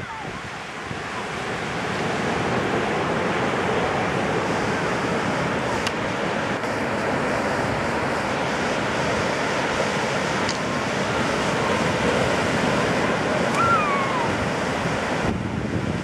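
Ocean surf breaking and washing up the beach in a steady rush.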